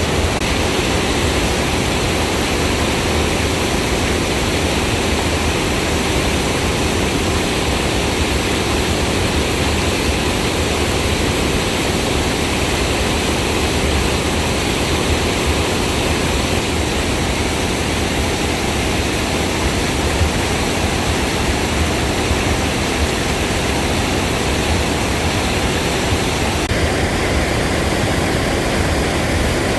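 Steady, loud rush of falling water from a waterfall, an even noise with a deep rumble underneath.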